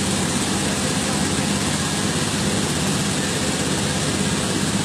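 Small boat motor running steadily, a low, even drone over the rush of falling water from the waterfall.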